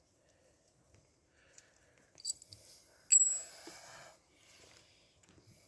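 Small metal parts of a garden-hose repair fitting being handled: a few light clicks, then a sharp metallic clink with a brief ring about three seconds in, followed by about a second of scraping.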